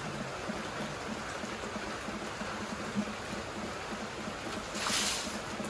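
Water poured out of a plastic bucket, splashing for about half a second near the end, over a steady background hiss.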